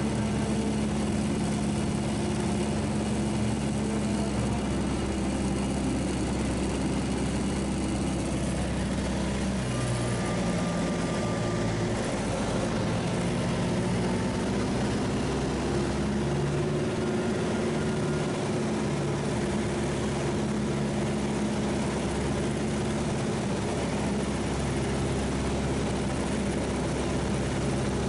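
Single-engine propeller plane's piston engine and propeller droning steadily, heard from inside the cockpit, with the pitch shifting slightly a few times.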